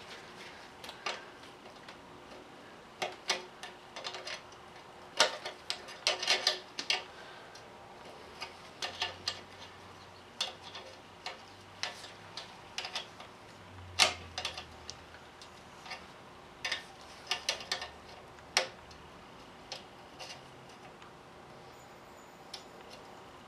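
Irregular metallic clicks and taps of a valve spring compressor being worked on the springs and retainers of a Cummins diesel cylinder head, some sharp and loud, with short gaps between them.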